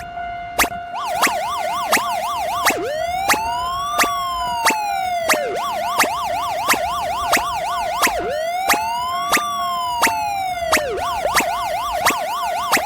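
Railway level-crossing alarm bell striking steadily, about three strikes every two seconds over a continuous ringing tone. A siren sounds over it, switching back and forth between a fast warble and a slow rise and fall.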